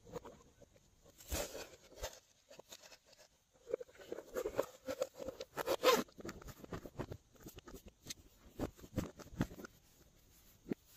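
Craft-foam pieces being handled, rubbed and peeled apart by hand, making irregular raspy scrapes and crackles. The scraping is busiest and loudest a few seconds in.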